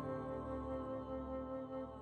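Background music: a slow, held chord that gradually fades.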